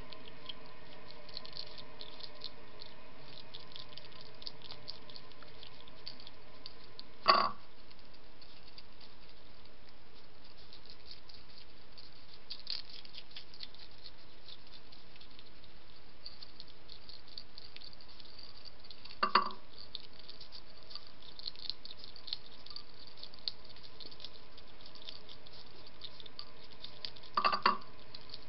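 Wild hedgehog crunching dry kibble from a ceramic plate, a fine constant patter of small ticks, with heavy rain pattering on the feeding station. Three sharper knocks stand out, about 7 and 19 seconds in and near the end.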